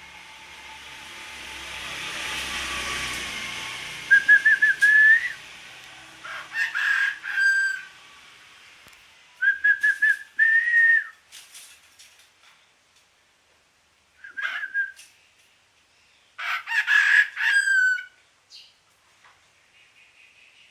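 Suren bird imitating a chicken: about five short, stuttering crow-like phrases, each ending on a held note, with pauses between them. A broad rush of noise swells and fades in the first few seconds.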